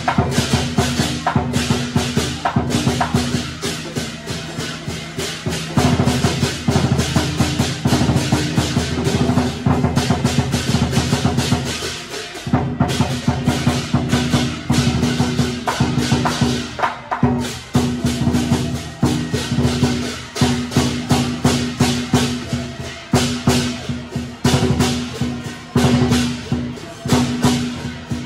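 Loud, fast percussion music: rapid drum and wood-block strikes, briefly dropping out about twelve seconds in and again about seventeen seconds in.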